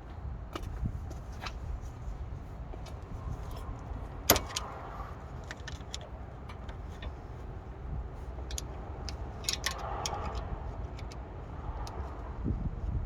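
Metal hand tools and brake hardware clicking and clinking as the parking brake cable is worked loose from a car's rear caliper bracket, with one sharp metallic knock about four seconds in, over a low background rumble.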